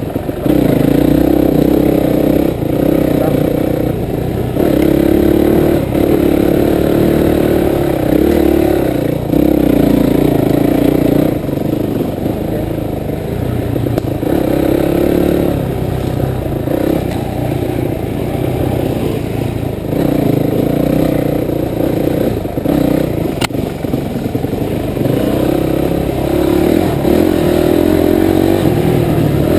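Dirt bike engine running on and off the throttle, revs rising and falling in repeated surges, with knocks and rattles from the bike over bumps.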